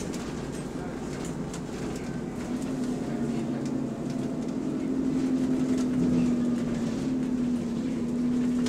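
Bus engine cooling fan running with a steady low drone that grows louder about halfway through, on a bus running in limp mode.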